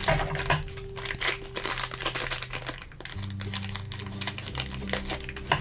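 Crinkly plastic wrapper being handled and cut open with scissors: an irregular run of crackling and rustling, over soft background music with steady low tones.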